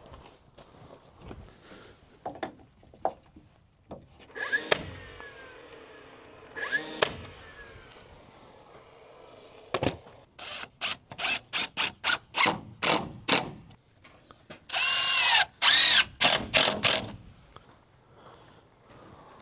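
Cordless drill running in a series of short trigger pulls, then one longer run of about two seconds whose motor pitch rises and falls, with a few scattered knocks of wood framing before it.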